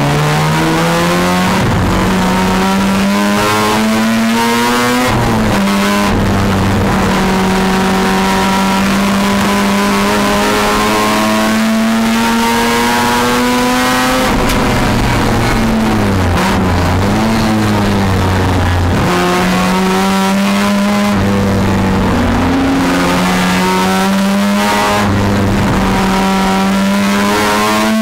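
Mazda RX-4's rotary engine at race pace, heard inside the cabin. Revs climb and drop back at upshifts near the start and again in the last few seconds. In the middle the engine runs steadier and lower, with brief dips in revs.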